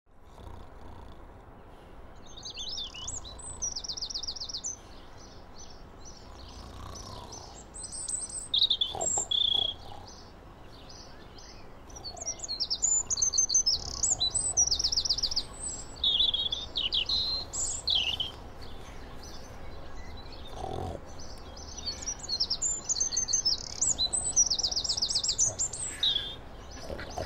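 Songbirds singing in the open air, with chirps, short phrases and several fast trills of rapidly repeated notes, over a faint low background rumble.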